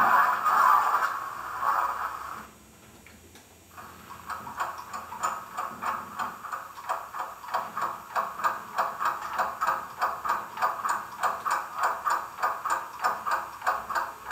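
Freight train flange squeal sound effect from the Zimo sound decoder of an OO-gauge Hornby class 08 shunter model, played through its small speaker. A continuous screech stops about two seconds in. After a short gap it comes back as a rhythmic pulsing screech, about three pulses a second.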